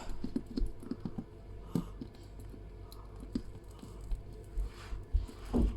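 Light scattered clicks and taps of wires, battery and soldering tools being handled while soldering leads to battery terminals, over a low steady hum.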